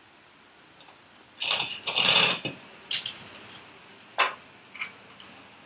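Metal hardware and hand tools at work on engine mount bolts: a loud clattering burst about a second and a half in, followed by three short metallic clicks.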